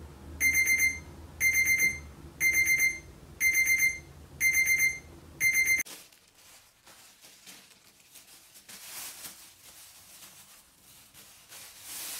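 A digital alarm beeping in bursts of about four quick high beeps, one burst a second, six bursts in all, cutting off abruptly about six seconds in. After that, a thin plastic bin liner rustles and crinkles as it is shaken open and fitted into a bin.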